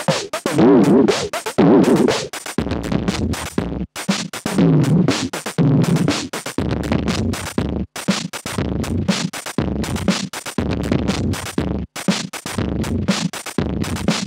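Electronic drum-machine loop played through a Moog Moogerfooger ring modulator and a guitar amp, while the pedal is being tested after repair. The loop restarts about every four seconds, and wavering metallic tones bend up and down over the beat as the pedal's knobs are turned.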